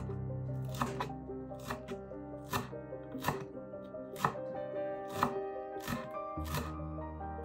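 Chef's knife chopping fresh parsley on a wooden cutting board, a sharp knock about every second, over steady background music.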